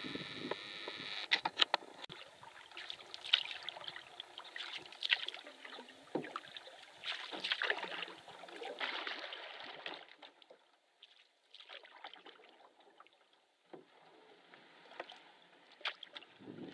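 Canoe being paddled: irregular splashing of paddle strokes and water lapping at the hull, with a few sharp knocks. The splashing gets quieter and sparser after about ten seconds.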